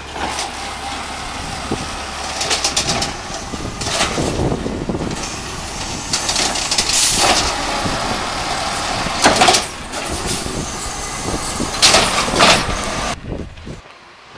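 Peterbilt 320 automated side-loader garbage truck working a curbside pickup: the engine and hydraulics run while the arm lifts and dumps a wheeled recycling cart, with several loud bangs and rattles, the loudest about nine and twelve seconds in.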